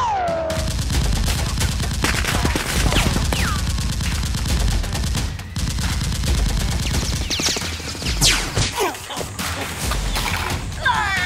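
Continuous rapid gunfire, many shots in quick succession.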